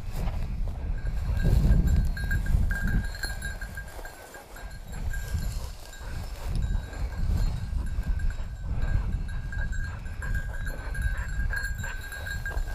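Wind buffeting the microphone in uneven gusts, loudest about two seconds in and easing off around the middle, with a faint steady high ringing tone running underneath.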